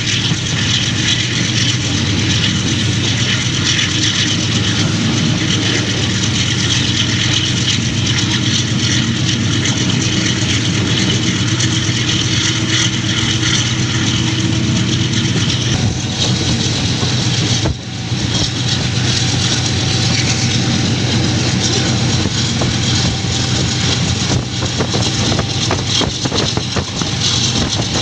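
AGE-30 diesel-electric locomotive working under power as the express picks up speed again: a steady engine hum under the running noise of the train on the rails, dipping briefly once partway through.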